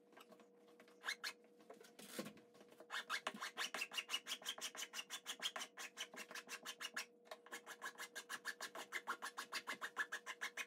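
Flat metal hand file rasping back and forth across the edge of a laminate countertop end cap, filing the overhang down flush with the counter. It starts with a few scattered strokes, then settles into a fast, even run of several strokes a second, with a brief pause about midway.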